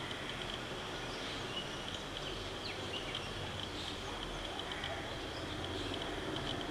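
Outdoor woodland ambience: insects trilling steadily in a high, finely pulsed band over a soft hiss, with a few faint bird chirps.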